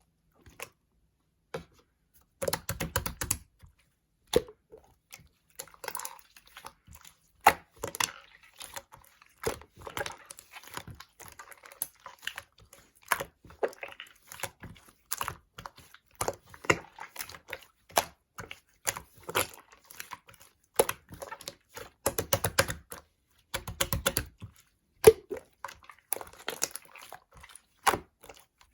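Slime being squeezed, poked and stretched by hand, giving a stream of sticky clicks and small air-bubble pops, with denser crackling bursts about two and a half seconds in and again past the twenty-second mark.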